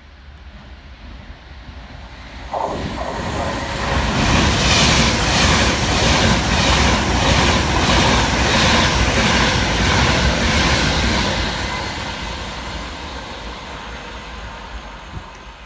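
Avanti West Coast Class 390 Pendolino electric train passing through the station. The noise builds, peaks in the middle with a rhythmic clatter of wheels over the rails, then fades away as the train recedes.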